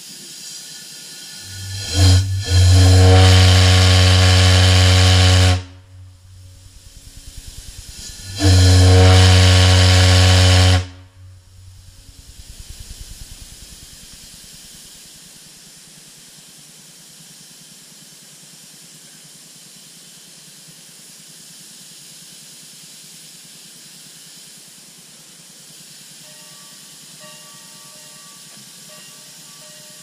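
A 6-inch Stephens & Struthers organ-pipe ship's whistle blown on compressed air, sounding a smooth, deep single note. A short toot about two seconds in runs straight into a blast of about three seconds, and a second blast of about two and a half seconds follows. A faint steady hiss remains afterwards.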